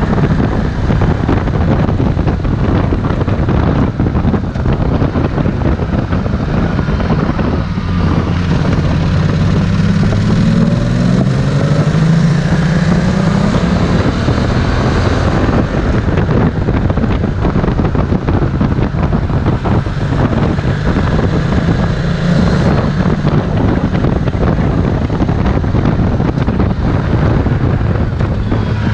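Ducati Multistrada 1260 S's 1262 cc Testastretta V-twin engine pulling under way, its revs climbing through a gear from about eight seconds in, dropping back, and climbing again near the end. Wind rushes over the microphone.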